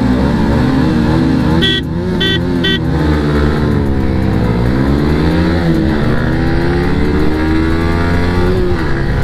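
Yamaha R15 V3's 155 cc single-cylinder engine accelerating hard through the gears: the revs climb, drop at each upshift and climb again, heard with wind rush from the riding motorcycle. Three short beeps sound about half a second apart, around two seconds in.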